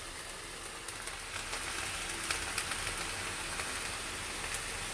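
Onions, garlic, ginger, galangal, green chilies and lemongrass sizzling in about two tablespoons of oil in a pan: a steady hiss with scattered sharp crackles.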